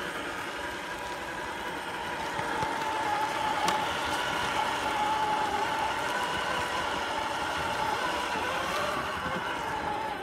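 Traxxas TRX-4 Ford Bronco RC crawler driving: its electric motor and gearbox give a steady whine that wavers slightly with the throttle. There is one sharp click about three and a half seconds in.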